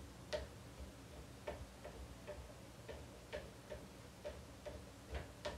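Faint, uneven clicks and light taps, roughly two a second, from cooking at the stove.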